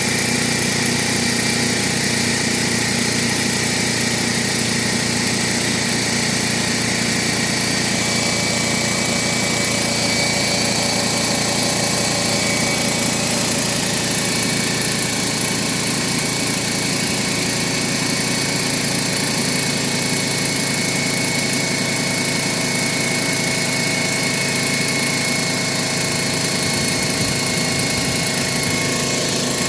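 Air compressor running steadily, pumping up its tank toward its 175 psi cut-off.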